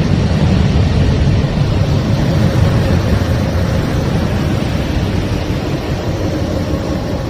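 Sonified planetary magnetic-field data presented as a planet's sound: a steady, dense low rumble of noise with a faint steady tone above it.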